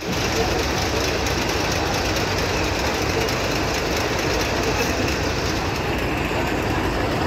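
Coach bus running close by, a steady rumble and hiss with no break.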